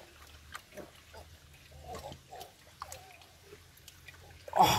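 A man's faint strained grunts and groans of effort as he works his arm into a muddy hole, with a few small clicks; a louder wavering vocal cry starts suddenly near the end.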